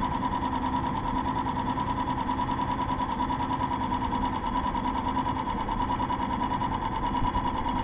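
Boat's outboard motor running steadily, with a fine even pulse.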